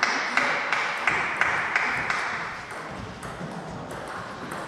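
Table tennis ball clicking off the table and rackets during a rally, about three hits a second, growing fainter after about two seconds.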